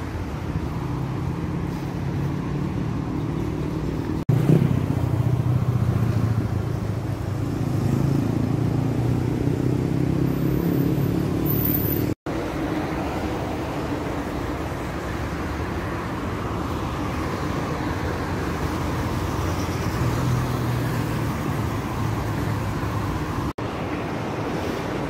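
Outdoor city road traffic: motor vehicles going past with steady engine and tyre noise, swelling louder for several seconds from about four seconds in. It breaks off briefly about twelve seconds in.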